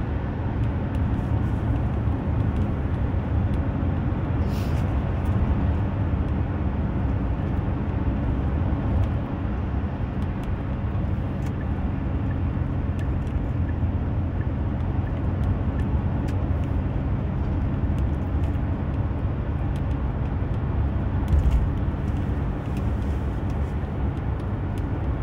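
Steady low rumble of a car on the move, heard from inside the cabin: engine and road noise, with a few faint clicks.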